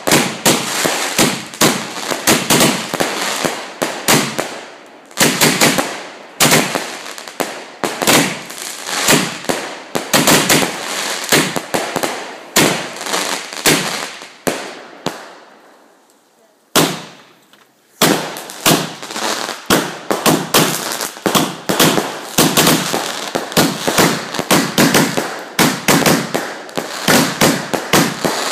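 A large multi-shot firework (barrage cake) firing a rapid run of bangs and crackling aerial bursts, several a second. Around the middle the shots thin out and fade, then one loud bang is followed by about a second of quiet before a denser run of bangs starts up again.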